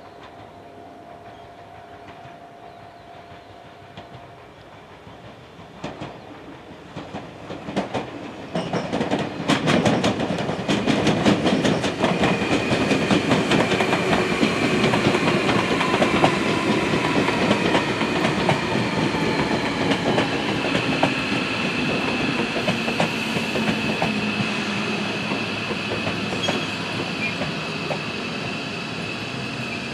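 Tobu 500 series Revaty electric express train approaching and passing close by. After a quiet start, its wheels clatter over rail joints, rising about a third of the way in; then it goes by with a steady high-pitched whine that slowly fades.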